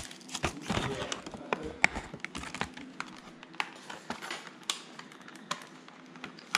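Hands handling a toy doll's small accessories and their packaging, making irregular light clicks and taps.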